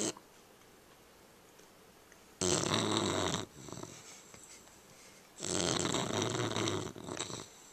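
English bulldog puppy snoring in its sleep: two loud snores about three seconds apart, each about a second long and trailing off into a softer breath.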